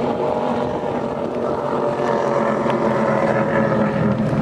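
Performance powerboat engines running at speed: a steady, dense engine drone that grows a little louder toward the end.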